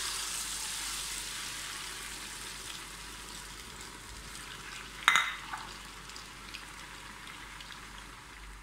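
Small dough pieces dropped into hot sunflower oil and deep-frying: a steady sizzle, loudest as they go in and easing off slowly. One sharp knock about five seconds in.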